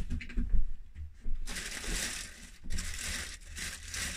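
A few light knocks, then a clear plastic bag wrapped around a circular saw crinkling and rustling as it is handled, from about a second and a half in.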